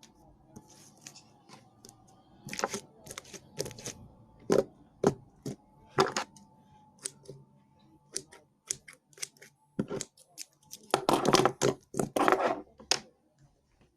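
Slime being pressed against and pulled off the strings of a plastic tennis racket: irregular sticky pops and clicks, with two longer crackling stretches near the end.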